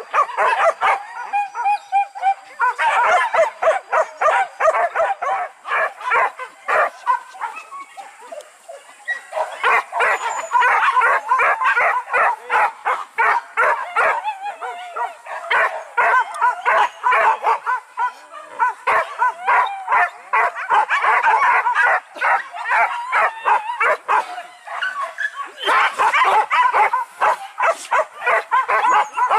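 A pack of hunting dogs on a wild boar hunt barking and yelping rapidly and excitedly. The barking eases off briefly about a quarter of the way in.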